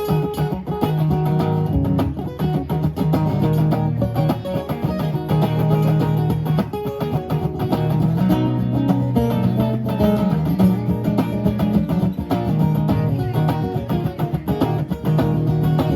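Live guitar music: an instrumental break with picked and strummed guitar and no singing.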